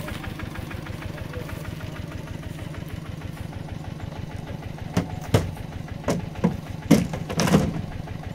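Mini tractor's engine idling with a steady, fast, even chug. About five seconds in, a run of sharp knocks and thuds begins; the loudest comes near the seven-second mark.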